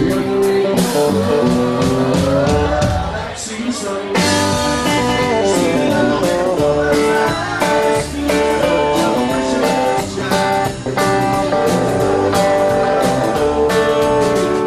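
Live country band playing: electric guitar and acoustic guitar over a drum kit, with a steady beat.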